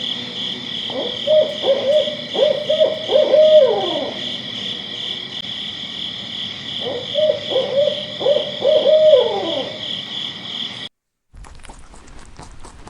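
Owl hooting in two bouts of about half a dozen quick hoots each, over a steady high-pitched buzz. The sound cuts off near the end, and faint clicking follows.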